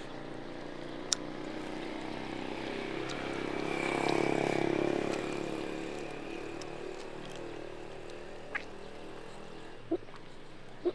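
A motor vehicle's engine passing close by, swelling to its loudest about four seconds in and then fading, over a steady engine hum. A few short clicks sound near the end.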